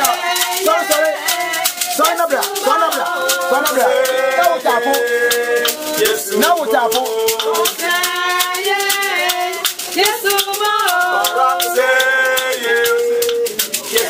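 Singing with a shaker rattling a steady rhythm throughout.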